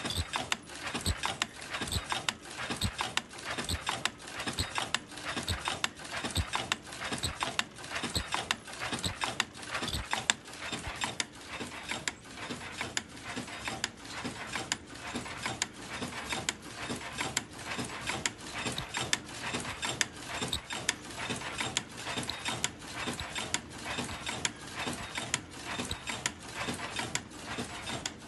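Senfeng FLK120 automatic face mask making machine running, with a steady rhythmic clatter of quick clicks and knocks from its moving mechanisms as it turns out masks.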